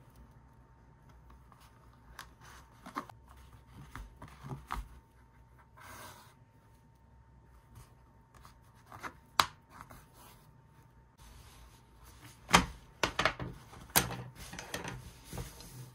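Hand embroidery: needle and thread drawn through cotton fabric stretched in an embroidery hoop, with soft rubbing and rustling of fingers on the cloth. In the second half come a few sharper clicks and knocks as the fabric and hoop are handled and the cloth comes out of the hoop.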